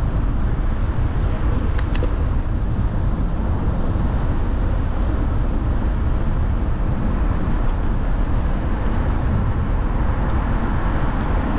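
Steady city street traffic noise heard from a moving bicycle, with a low rumble that stays even throughout. A couple of faint clicks come about two seconds in.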